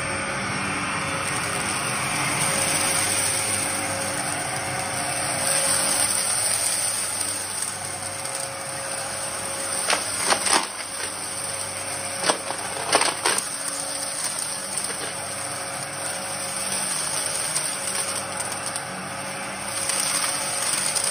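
Upright bagless vacuum cleaner running steadily on carpet, a motor hum with a high whine. About ten and again about thirteen seconds in come short clusters of sharp crackles as crunchy debris is sucked up into the canister.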